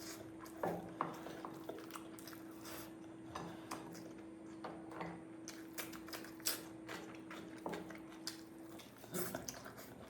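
Close-up eating sounds of rice and curry: irregular chewing and mouth smacks with clicks of a plate or utensils. A faint steady hum underneath stops about nine seconds in.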